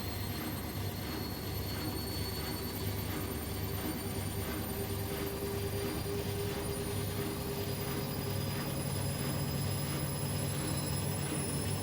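Bosch Maxx washing machine spinning with a deliberately unbalanced load, its motor whine rising slowly as the drum gathers speed. Under the whine there is a steady hum and a faint beat about twice a second.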